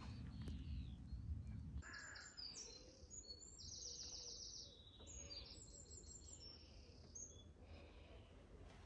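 Faint birdsong: high chirps and rapid trilling phrases, from about two seconds in until near the end. At the start a low rumble runs, then stops abruptly about two seconds in.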